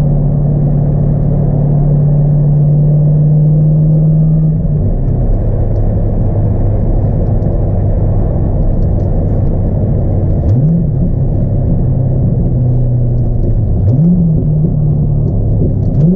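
A 2002 Corvette C5's LS1 V8 with a cold air intake, heard from inside the cabin while driving. It drones steadily, and its note drops lower about four and a half seconds in. Later it rises briefly twice with quick revs, and near the end it climbs back up and holds the higher note.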